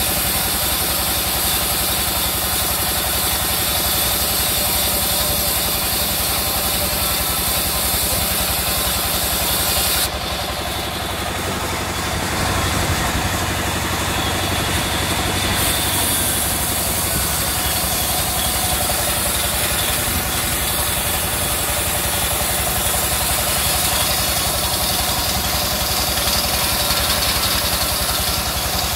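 Sawmill's vertical band saw running steadily, a continuous loud mechanical drone of its drive and blade, dipping slightly for a few seconds about ten seconds in.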